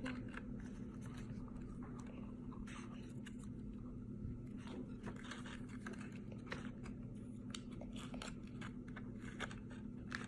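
Scattered small crackles and clicks of plastic toy packaging being picked at and pulled apart by hand, over a steady low hum.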